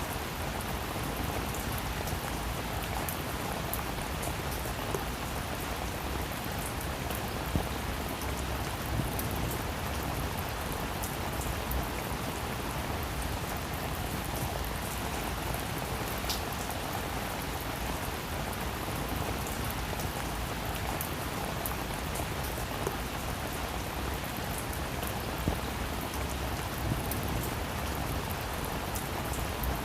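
Heavy rain falling steadily, a dense even hiss with scattered individual drops striking a surface.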